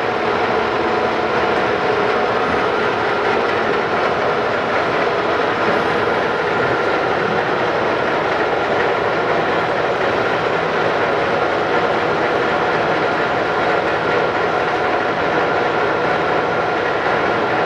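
Monarch 21" x 54" heavy-duty toolroom lathe running under power, its geared headstock turning the 15-inch four-jaw chuck: a steady, even mechanical whir with several constant gear tones. It runs smoothly and sounds good, the sign of a well-kept, low-hour machine.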